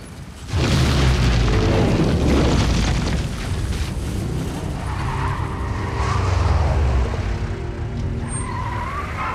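Film soundtrack: a sudden huge explosion boom about half a second in as the crashed cargo plane blows up, followed by a long, heavy low rumble of the blast and fire, over dramatic music. Car engines and squealing tyres come in later as cars pull away from the fireball.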